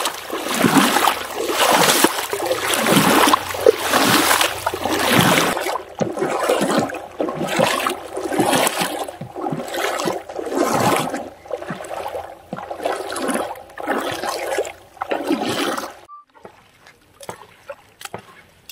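Footsteps wading through shallow river water in sandals, each stride splashing, in a steady walking rhythm of about one and a half steps a second. The splashing stops abruptly about sixteen seconds in.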